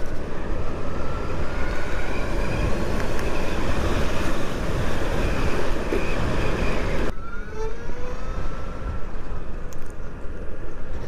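Wind rushing over the microphone with tyre and road noise from a Zero SR/F electric motorcycle at speed, a faint whine from its electric motor underneath. About seven seconds in the wind noise drops suddenly as the bike runs slower, and a thin whine rises in pitch.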